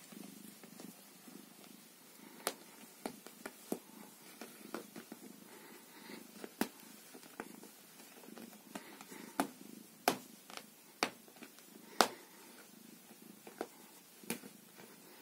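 Domestic cat purring steadily while being stroked and scratched, with sharp clicks scattered through it. The loudest clicks come about ten and twelve seconds in.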